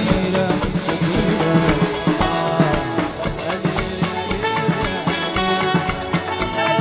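A live band playing Sudanese popular music on keyboards, saxophone, electric guitar, drum kit and hand drum, with a steady beat.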